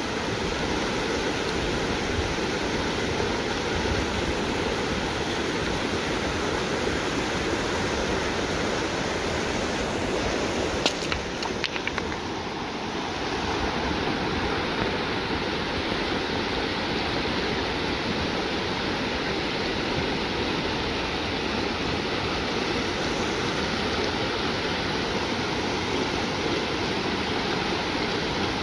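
Shallow river running over rocks in small rapids: a steady rushing and babbling of water. A few short clicks about eleven seconds in.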